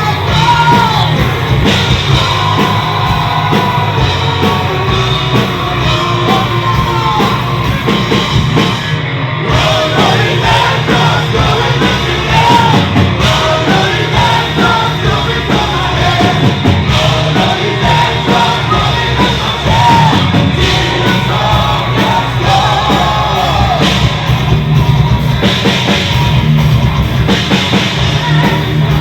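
A live heavy metal band playing loud, with a singer's voice over drums and distorted guitars.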